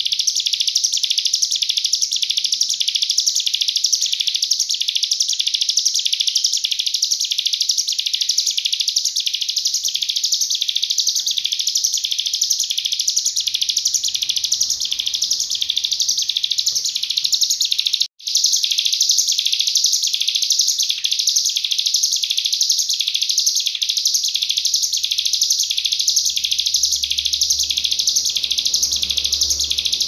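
Ciblek gunung (a prinia) singing nonstop in its full 'nembak' song: a loud, high-pitched note repeated quickly, about two or three times a second. The song cuts out briefly and suddenly about 18 seconds in.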